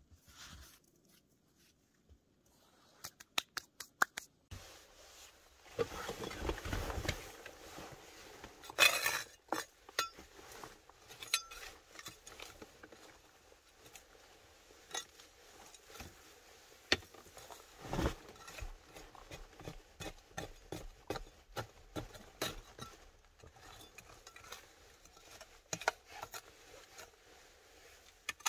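Small metal hand trowel scraping and clinking against stony soil and pebbles while digging out a hole in an earth wall. It begins a few seconds in, as many irregular sharp clicks and scrapes with a few louder knocks.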